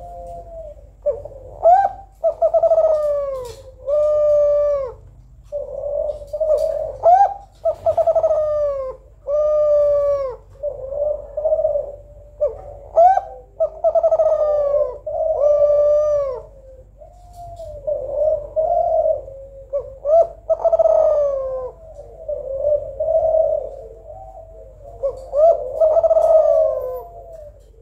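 Female Kelantan-type spotted dove (derkuku Kelantan) cooing: phrase after phrase of several bending coo notes, each phrase lasting a second or two, with short pauses between.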